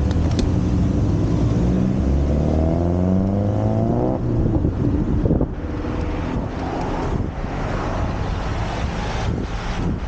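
Motor vehicle engine running, then revving up with a rising pitch for about two seconds before it cuts off about four seconds in. After that, a steady rushing noise.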